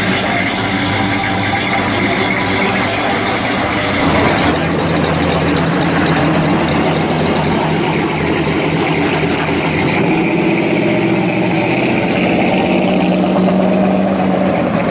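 Classic muscle car engines idling and running through their exhausts, the sound changing suddenly about four and a half seconds in and again about ten seconds in as one car gives way to the next.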